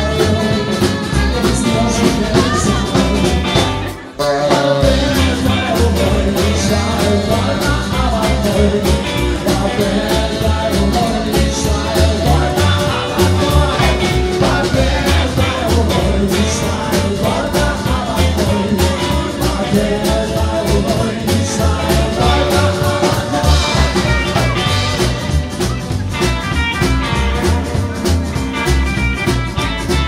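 Live band playing: a singer with acoustic guitar, upright double bass, saxophone, electric guitar and drums. The music breaks off for an instant about four seconds in, then carries on.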